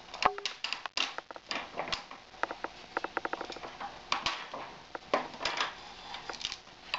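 Hand wrenches working the bolt and nut at the base of a Stryker stretcher's gas spring: scattered metal clicks and taps, with a quick, even run of clicks near the middle.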